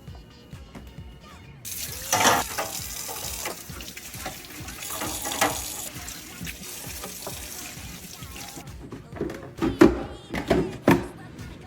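Tap water running into a sink, with several knocks and clatters of items being handled in the sink near the end.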